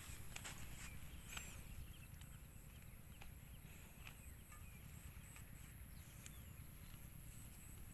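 Faint open-field ambience. There is a steady low rumble and a thin, steady high-pitched hiss, with a few soft taps and rustles and some faint high chirps.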